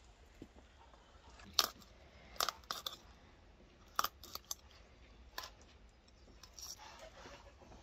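Kitchen knife slitting open the belly of a whole fish in a plastic bowl: a few short, sharp crunching clicks and scrapes, spaced unevenly.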